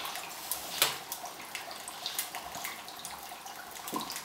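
Dry ice bubbling in water, with irregular crackles and pops over a steady fizzing hiss. One sharper click comes about a second in.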